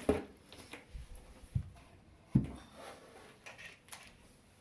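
Floor lamp parts being handled and set down: a few dull knocks and light clatter, the loudest about two and a half seconds in.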